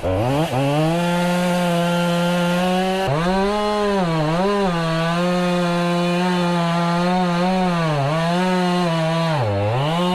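Two-stroke chainsaw revving up and running at full throttle while cutting a notch low in a big hollow tree, its pitch dipping briefly a few times as the chain bites into the wood.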